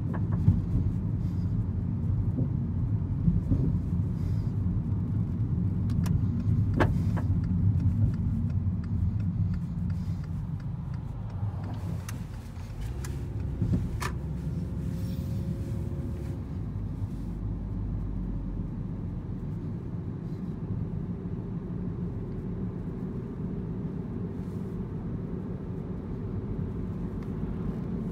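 Steady low rumble of a car's engine and tyres on the road, heard from inside the cabin while driving. It dips slightly about halfway, and a couple of sharp clicks stand out.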